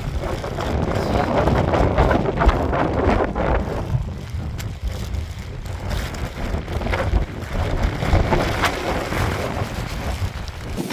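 Strong gusting wind buffeting the microphone: a loud, uneven rumble that swells and drops with the gusts.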